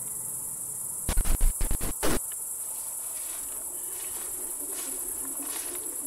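Crickets chirping steadily in a high, even band. About a second in comes a cluster of loud, sharp crackles and knocks lasting about a second, the loudest sound here.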